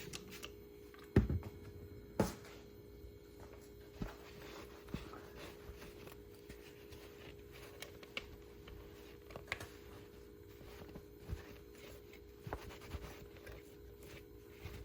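Light handling knocks and clicks, two sharper knocks in the first few seconds, then scattered faint clicks over a steady hum.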